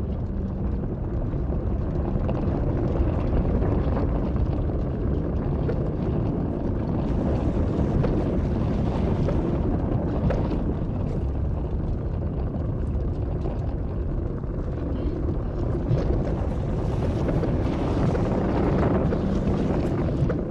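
Steady, deep rushing rumble of a churning lava lake, with a few faint crackles.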